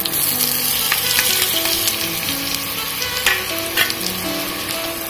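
Chopped red onions dropped into hot oil with curry leaves, sizzling and frying steadily in the pan, with a couple of sharp clicks a little over three seconds in.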